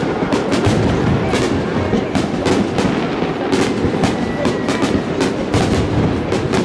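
Fireworks display: aerial shells launching and bursting in quick succession, a rapid, irregular string of bangs over a continuous low rumble.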